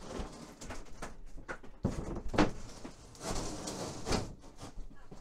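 A large thin sheet of 5.5 mm plywood being tilted and lowered onto a floor, its edges scraping and knocking several times against the floor and kitchen units.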